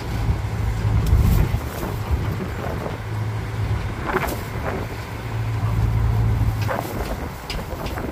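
Tourist road train running along at low speed, heard from inside its open carriage: a steady low engine drone that eases off near the end, with a few short sharp sounds.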